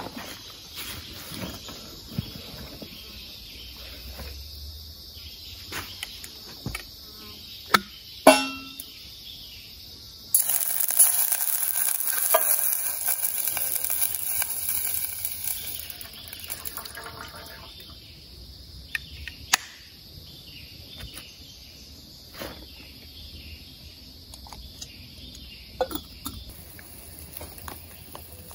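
Portable gas stove hissing loudly as gas flows, starting suddenly about ten seconds in and fading away after about six seconds, preceded by a few sharp metal clicks and clinks. Insects chirr steadily throughout.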